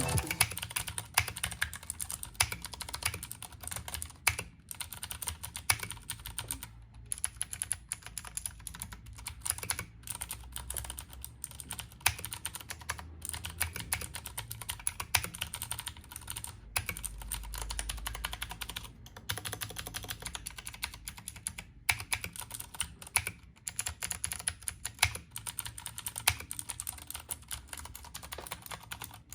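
Ducky One 2 Mini 60% mechanical keyboard with clicky Cherry MX Blue switches being typed on fast and continuously, a dense stream of sharp key clicks broken by a few short pauses.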